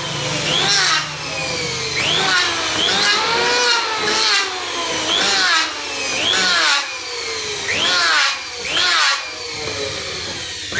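Electric hand planer shaving a narrow wooden strip in repeated quick passes, about one a second. The motor's whine drops as the blades bite into the wood and climbs back up between passes.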